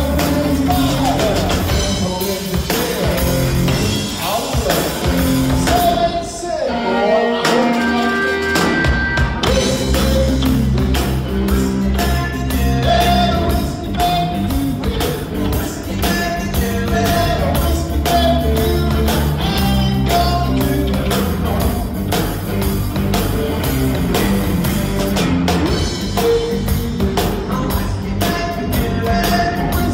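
Live rock band playing loud: electric bass, electric guitar and a drum kit with cymbals. About six seconds in the low end drops away for a couple of seconds, then the full band comes back in.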